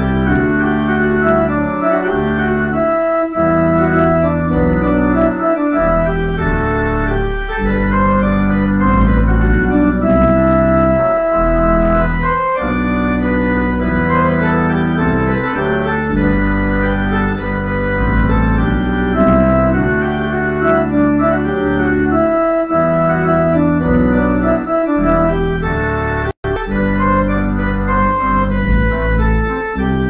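Organ music: sustained chords that change every second or two, with the sound cutting out for an instant near the end.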